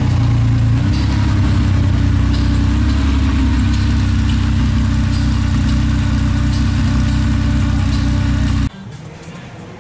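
Air-cooled flat-six of an early black Porsche 911 idling steadily, a low, even engine note. It cuts off abruptly near the end, leaving a much quieter background.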